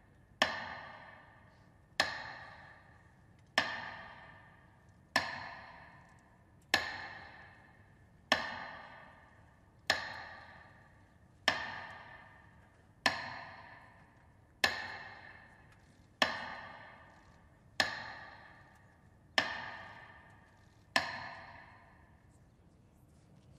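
Slow, even metronome beats, about one every second and a half, each sharp tick ringing out before the next, marking a minute of silence; the beats stop a couple of seconds before the end.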